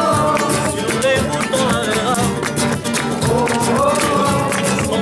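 Flamenco-style music: acoustic guitar strummed in a quick, driving rhythm, with a voice singing a long, wavering melodic line over it.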